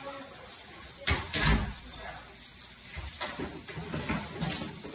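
A few knocks and clatters over a steady hiss, the loudest cluster about a second in, then several lighter knocks.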